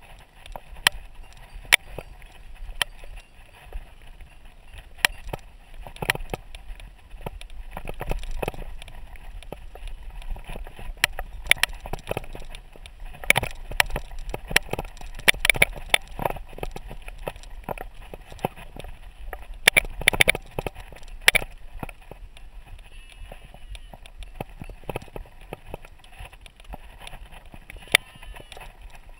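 Mountain bike rattling down a rough dirt singletrack: frequent sharp, irregular knocks and clatters from the frame, chain and fork over bumps, over a steady low rumble of tyres and wind.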